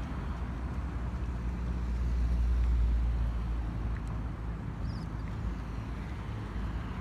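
Low engine drone, swelling to its loudest about two to three seconds in and then easing off, as of a motor passing.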